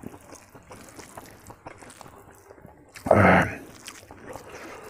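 A bare hand squishing and mixing rice with omelet curry on a plate, with small wet clicks of eating. About three seconds in, a brief loud mouth sound from the eater.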